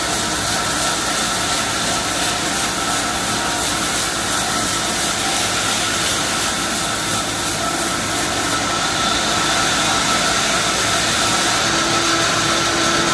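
Stationary sawmill running steadily as it saws through a freshly felled, wet mahogany log, a continuous loud machine noise with a steady high whine.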